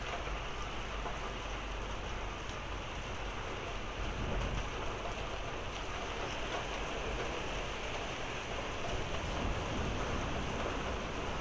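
Steady thunderstorm downpour: rain mixed with small hail hitting the ground, a continuous hiss with a few sharper ticks and a low rumble underneath.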